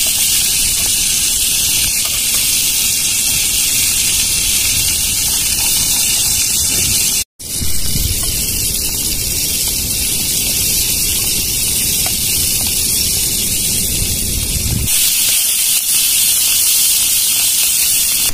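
Seafood frying in hot oil: a steady, loud sizzle, with a brief dropout about seven seconds in.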